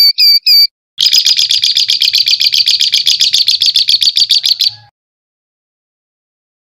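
A recorded songbird singing harsh, rapid 'tembakan' phrases: a few loud repeated high notes, then a fast rattling trill of about ten sharp notes a second that runs for nearly four seconds and stops abruptly.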